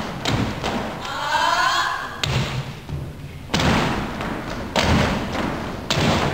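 Step team stomping their boots in unison on a wooden stage in a rhythmic step routine, strike after strike with pauses between. About a second in, a voice calls out briefly.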